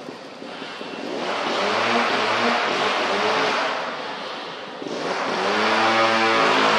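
Motor vehicle engine running, rising and falling in pitch and loudness twice, as if passing or revving.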